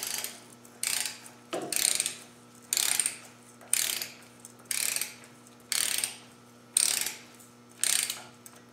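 Ratchet wrench running bolts down: a short rasping burst of ratchet clicks on each back-swing, nine of them, about one a second.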